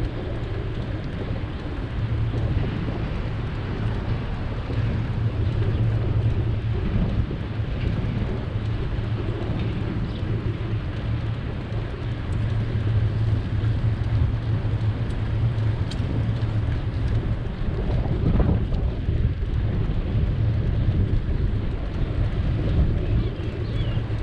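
Steady low wind rumble on a microphone moving with a bicycle, mixed with city traffic noise, with a brief louder swell about eighteen seconds in.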